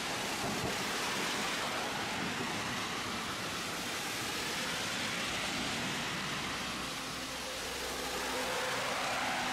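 Tosaden streetcar running in heavy rain: a steady rushing hiss of rain and running noise, with a faint motor whine that rises near the end.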